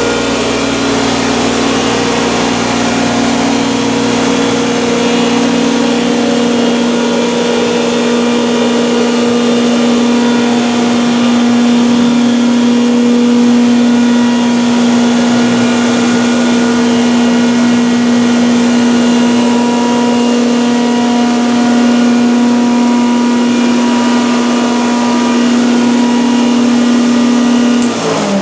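Masala pulveriser grinder machine running steadily with a loud, even hum, then switched off near the end, its pitch falling quickly as the motor spins down.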